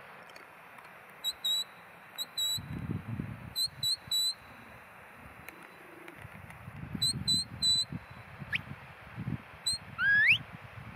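Shepherd's whistle giving commands to a working sheepdog: short, high, flat blasts in twos and threes, then near the end two rising whistles.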